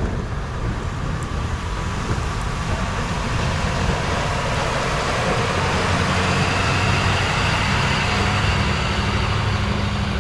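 Plow truck pushing heavy, wet snow with its angled blade as it drives past close by: the engine runs steadily under load over the rushing scrape of blade and snow on pavement. The sound grows louder in the second half as the truck nears.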